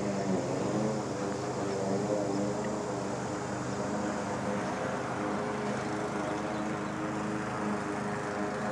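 A steady engine drone, holding an even pitch and level throughout.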